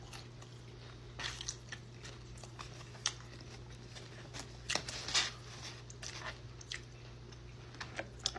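Close-up biting and chewing of crispy-coated fried chicken wings, irregular crunches with the loudest about five seconds in.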